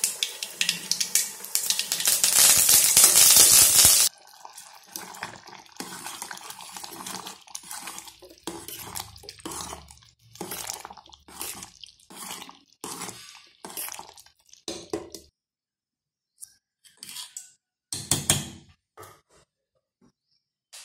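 Mustard seeds sizzling in hot oil in a metal kadai for a tadka (tempering), cutting off abruptly after about four seconds. Then a ladle stirs and scrapes through thick dal kootu in a pot, with a few metal clinks near the end.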